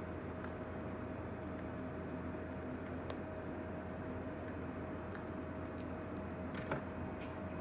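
A few light, sharp clicks of a small screwdriver working the screws on an iPhone XS logic board, spread over several seconds above a steady background hum with a faint constant whine.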